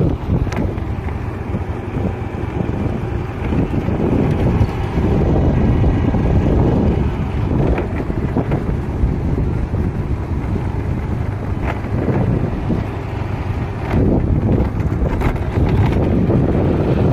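Wind buffeting the microphone of a moving vehicle, a loud gusty rumble over the vehicle's road noise.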